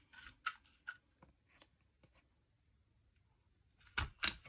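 Paper being handled in a paper craft, with a few light rustles and ticks in the first second, then two sharp clicks close together near the end.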